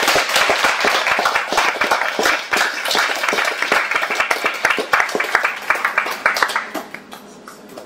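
Audience applauding with dense clapping that thins out and fades away near the end.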